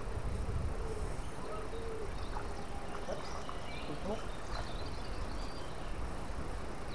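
Riverside ambience: a steady high-pitched insect buzz with scattered short bird chirps over a low rumble.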